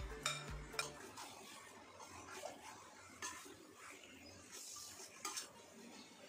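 A metal spoon scraping marinated chicken out of a plastic bowl and stirring it in a steel kadai, with a few sharp clinks of spoon on pan and soft scraping between them.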